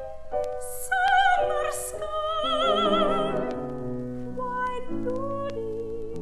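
Operatic soprano singing an aria with wide vibrato over piano accompaniment. The voice is strongest in the first half. In the second half the piano's held chords come to the fore.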